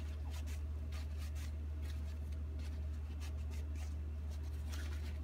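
Paper towel dampened with rubbing alcohol wiped along a carbon steel pocket knife blade in repeated short strokes, cleaning it before patina. A steady low hum runs underneath.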